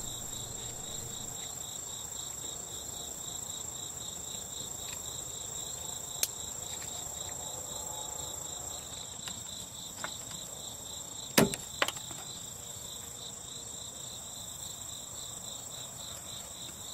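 Sharp clicks from plastic wiring connectors being handled and snapped together on a car's power-window motor harness, the loudest pair about eleven and a half seconds in. Underneath runs a steady, high, fast-pulsing trill that cuts off near the end.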